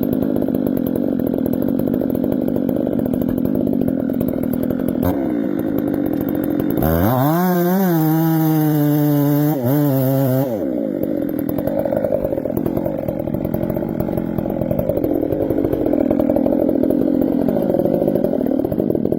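Two-stroke chainsaw cutting through wood, its engine running steadily under load. For a few seconds in the middle it revs high and free with a wavering pitch, then drops back into the cut.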